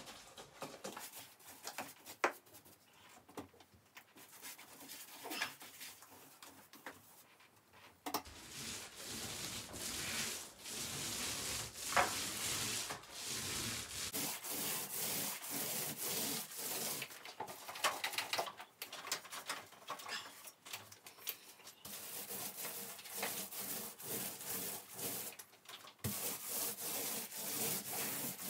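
A paint roller on an extension pole being rolled back and forth across a ceiling, a wet, rasping rub in repeated strokes. It starts about eight seconds in and grows louder a few seconds later; before that there are only a few faint clicks.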